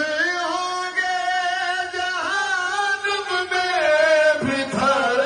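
Male voices singing a Shia devotional recitation into microphones, in long drawn-out notes that bend in pitch, with a short break near the end.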